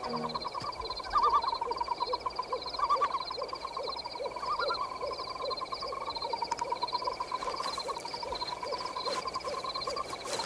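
Night-time forest sound effects: a steady chorus of rhythmically chirping insects over a thin high whine, with a low hoot-like call repeating about twice a second.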